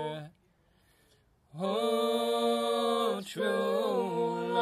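A small group of voices singing an Irish folk song a cappella in slow, drawn-out notes. A held note ends just after the start, there is a pause of about a second, and the voices come back in together about a second and a half in with long sustained notes, taking a short breath about three seconds in.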